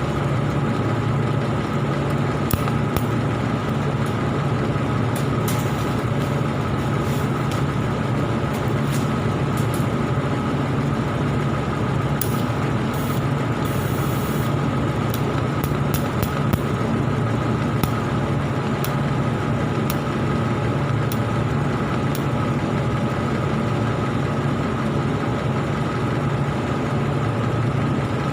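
Argon (TIG) welding arc and welding machine running steadily: a constant low hum with hiss, and occasional faint ticks.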